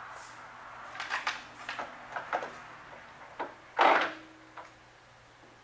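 A lathe is being started at slow speed, about 130 RPM: several clicks and knocks of its controls are worked. The loudest is a short clunk about four seconds in, followed by a brief, faint low hum.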